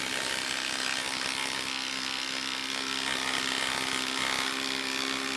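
Makita brushless cordless impact driver hammering steadily under load as it drives a 4-inch lag screw into a log round.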